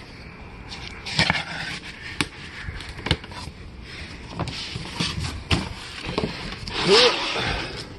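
A large cardboard box being cut open with a folding knife and its flaps and lid pulled up: cardboard scraping and rustling with scattered knocks, loudest near the end.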